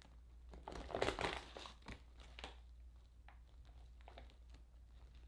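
Faint crinkling and rustling of a plastic flower pack as the buds inside are handled, loudest about a second in, with a few small ticks after.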